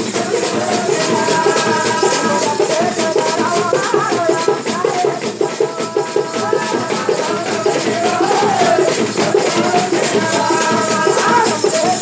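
Live drumming on hand-held barrel drums in a fast, dense rhythm, with a rattling jingle and a wavering melody line over it.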